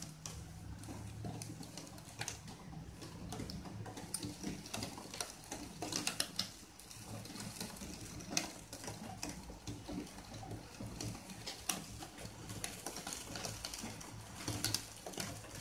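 A spoon spreading a thick corn topping across a bread slice: soft scraping with scattered light clicks, over a low steady hum.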